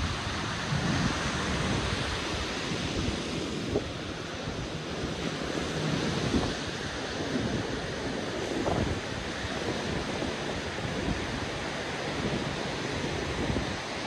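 Ocean surf washing steadily, with wind buffeting the microphone in low gusts.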